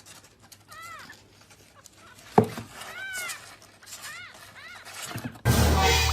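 A cat meowing in short calls, about four of them, each rising and then falling in pitch. A sharp knock comes about two and a half seconds in, and a loud rush of noise starts near the end.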